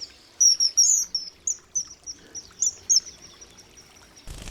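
Common kingfisher giving a quick series of about a dozen short, shrill, high-pitched calls over the first three seconds.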